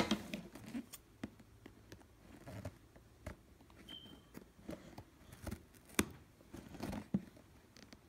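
Cardboard toy box being handled and worked at its end flap: scattered taps, light scrapes and knocks of fingers and box, with a sharp knock at the start and another about six seconds in.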